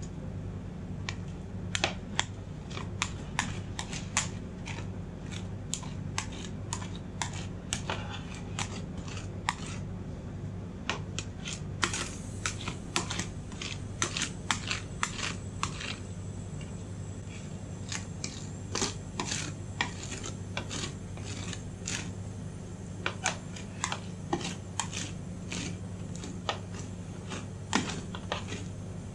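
Steel spatulas tapping and scraping on the frozen metal plate of a rolled-ice-cream pan as the ice cream base is chopped and spread thin. The sound is irregular runs of sharp clicks and scrapes over a steady low hum.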